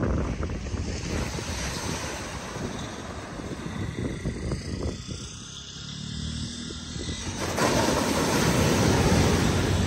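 Ocean surf washing onto a sandy beach, with wind on the microphone and a low steady drone underneath. A wave breaks and the wash swells louder a little past the middle, then eases near the end.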